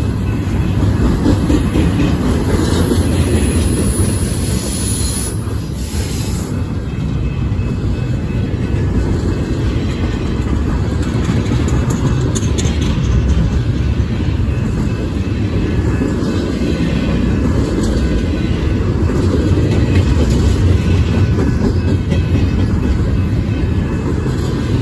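Double-stack intermodal container train rolling past close by: a steady, loud low rumble of steel wheels on rail from the loaded well cars.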